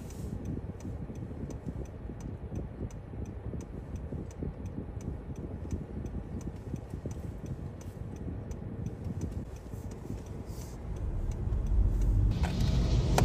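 Low rumble inside a car stopped in traffic, with a steady light ticking that stops about two-thirds of the way through. A louder rush of noise rises near the end.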